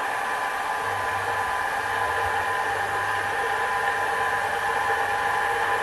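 Sherline mini metal lathe running steadily: its motor and spindle give a steady whine of several high tones, and about a second in a low hum joins it.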